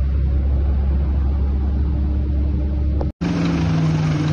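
Steady low engine rumble from inside a flooded bus, cut off abruptly about three seconds in. It is replaced by a motorcycle engine running with a steady note as the bike rides through floodwater.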